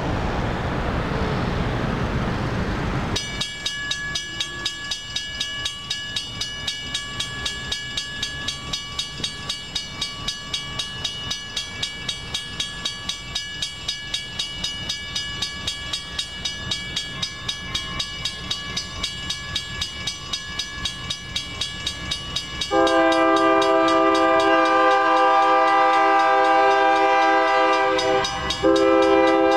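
Railroad crossing bell starts ringing about three seconds in, after a few seconds of passing traffic, and keeps a steady, quick ding, about two strikes a second. Near the end an approaching locomotive's horn blows a long loud blast, breaks off for an instant and sounds again, over the bell.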